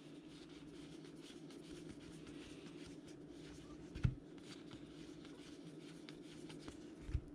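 Baseball trading cards being slid and flipped through by hand, a faint rustle with light ticks, over a steady low hum. There is a soft thump about four seconds in and another near the end.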